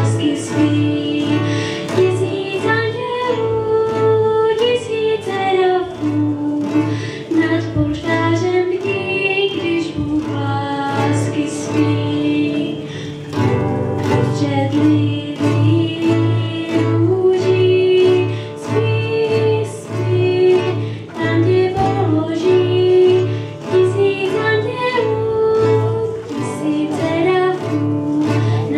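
A girl singing a song into a microphone, accompanied by an acoustic guitar over a steady low beat.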